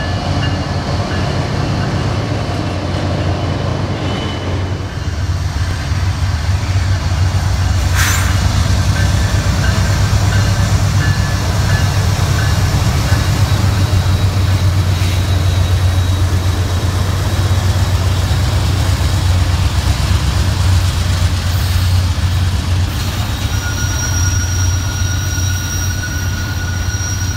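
CSX freight train passing close by: the diesel-electric locomotives' engines and the cars' wheels on the rails give a steady, loud low rumble. Near the end a thin, high wheel squeal comes in over it.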